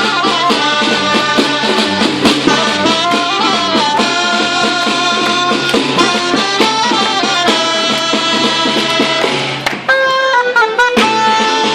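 A small ensemble plays live music with melody instruments and percussion. About ten seconds in there is a brief break, followed by sustained held notes.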